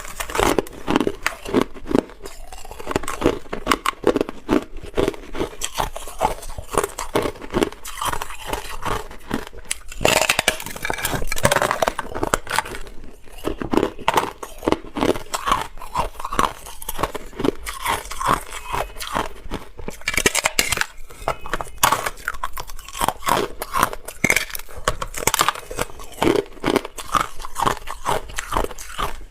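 Hard clear ice being bitten and chewed, a rapid run of sharp cracking crunches close to the microphone.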